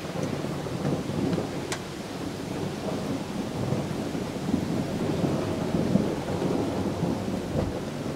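Thunderstorm: a continuous low rumbling of thunder mixed with rain.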